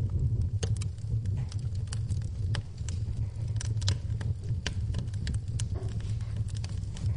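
Wood fire burning in a fireplace, crackling and popping with irregular sharp snaps over a steady low rumble.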